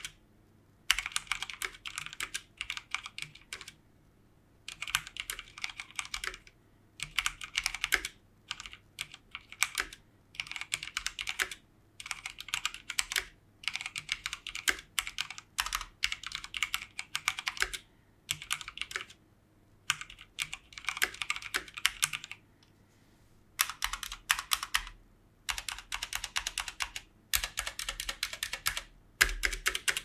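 Typing on an EVGA Z15 mechanical keyboard fitted with Kailh Speed Silver linear switches: rapid key clicks in runs of a second or two, with short pauses between runs.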